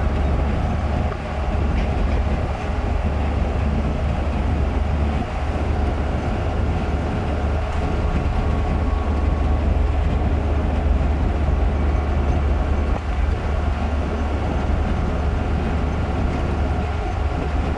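Steady road and engine noise inside the cabin of a moving car, dominated by a deep, even rumble.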